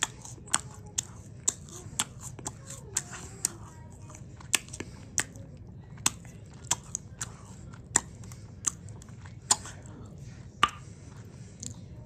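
Open-mouthed chewing and lip smacking on a Nutty Buddy peanut butter wafer bar. Sharp, wet smacks come irregularly, about one or two a second.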